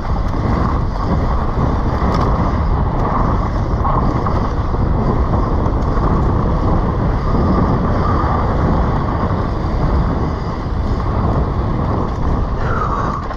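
Wind buffeting the camera microphone and mountain-bike tyres rolling fast over loose dirt and rocks, a loud, steady rushing and rattling throughout the descent. A short falling squeal comes near the end.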